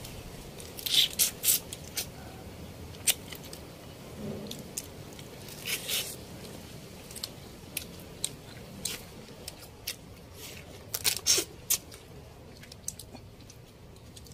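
Alimasag crab shells being cracked and bitten open while eating, with chewing: irregular sharp crunches and clicks, in clusters about a second in, around six seconds and again near eleven seconds.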